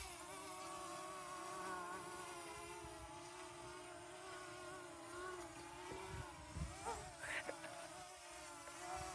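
Small quadcopter drone's propellers buzzing steadily as it flies, the whine wavering slightly in pitch.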